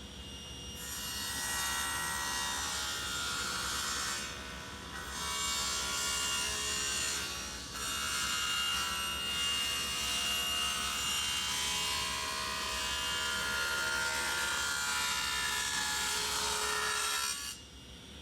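A power tool working wood, running in long passes with two short dips, its whine shifting as it bites into the wood, then cutting off sharply near the end.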